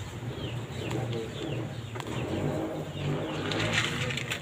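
Birds calling in the background: a low, wavering cooing, with short falling chirps repeated about twice a second.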